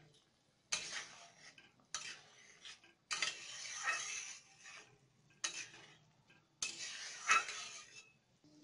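A metal spatula stirring ripe jujubes in hot oil in an aluminium kadai: five scraping strokes against the pan, the third and last drawn out for over a second, with the oil sizzling.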